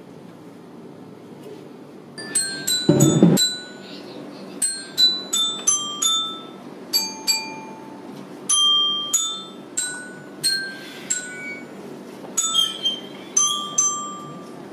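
High, bell-like mallet-percussion notes struck one at a time, two or three a second, each ringing briefly, in a twinkling music cue. A short, loud low rumble comes about three seconds in.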